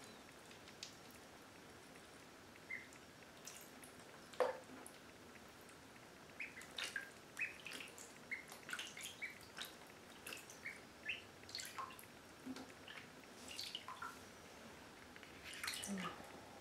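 Indian Runner ducklings paddling and shuffling in shallow bathtub water: faint small splashes and drips with scattered soft short peeps, which come more often in the second half.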